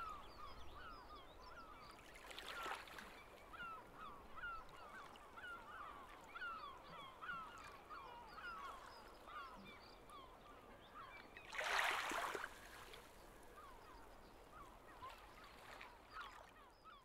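A flock of birds calling continuously and faintly, several short calls a second. A brief rush of noise about twelve seconds in is the loudest moment.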